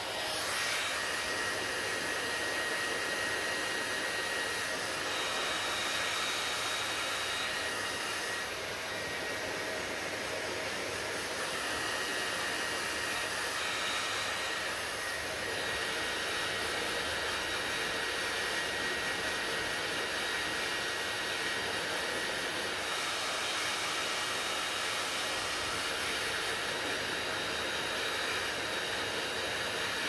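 Handheld hair dryer running steadily, blowing air onto hair: a constant rush of air with a thin, steady high whine from the motor.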